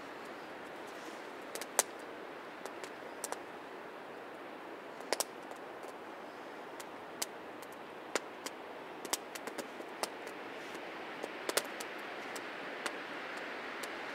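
Small wood campfire crackling: irregular sharp pops and snaps, a few a second at times, over a steady hiss.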